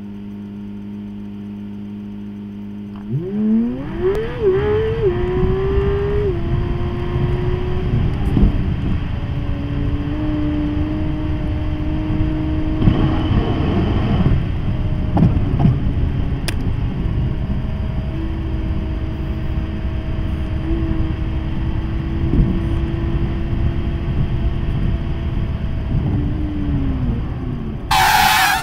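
Cadillac CTS V-Sport's twin-turbo 3.6-litre V6, heard from inside the cabin, idling and then revving up hard from a standstill about three seconds in, its pitch climbing and dropping back with quick upshifts. It then runs steadily at cruising speed and falls away as the car slows near the end, with a short loud rushing noise just before the end.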